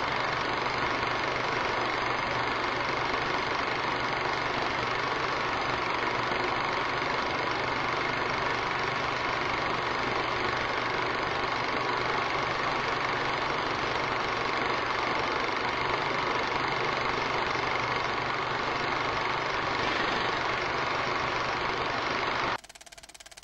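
Steady mechanical running noise with a constant whine, unchanging in level, that cuts off suddenly near the end.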